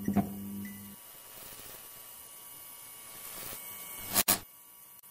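Logo-intro sound effects. An electric neon-style buzz lasts about a second, then a whoosh swells, and a sharp double hit comes about four seconds in.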